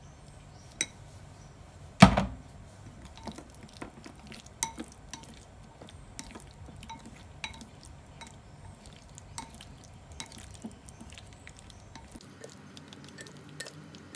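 Wooden chopsticks and a silicone spatula stirring a salad in a glass bowl, with irregular light clinks against the glass and one louder knock about two seconds in.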